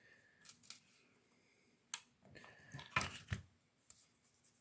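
Scattered light clicks and taps of hands handling a plug and small parts on a workbench, a few single ticks early on and a quick cluster about three seconds in.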